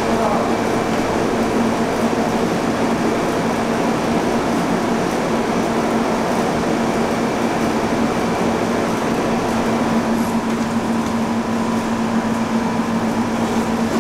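Steady subway station background noise: a constant low mechanical hum under an even rushing haze.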